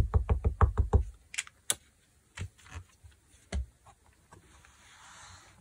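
Rapid dabbing of an ink pad against a rubber leaf stamp to ink it, about seven or eight taps a second, which stops about a second in. After that come a few separate knocks and clicks, and a soft rustle near the end.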